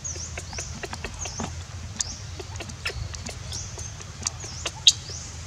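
High-pitched chirping calls, each a quick dip and rise in pitch, repeating about once a second, over scattered sharp clicks and a low steady rumble. A louder click comes near the end.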